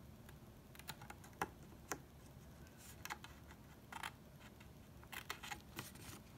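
Small pointed scissors (Fiskars Micro-Tip) snipping through cardstock: faint, short, sharp snips at irregular intervals, several in quick succession near the end.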